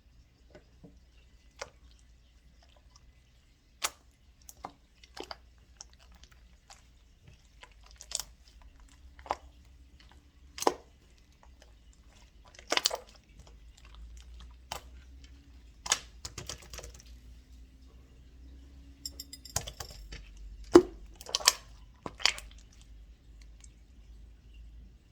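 Sporadic light clicks and taps of a spoon while eating bead ice cream, a second or two apart, with a cluster of louder ones about twenty seconds in.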